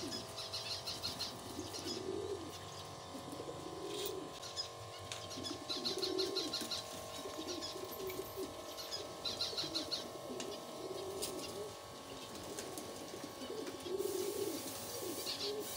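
Domestic pigeons cooing over and over in low, warbling coos about once a second. A rapid high chirping breaks in a few times.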